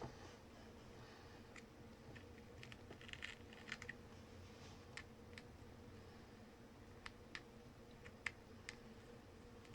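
Faint, scattered clicks and taps of small hand tools working on a smartphone's back, prying off cracked camera lens glass, with a small cluster of clicks about three seconds in. A faint steady hum sits underneath.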